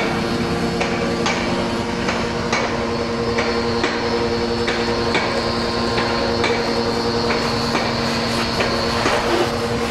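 Hyundai 105-bar, 1400-watt electric pressure washer running steadily with a hum and a high whine from its carbon-brush motor and pump, spraying shampoo through the foam bottle on its gun with a hiss. A regular knock sounds about every two-thirds of a second.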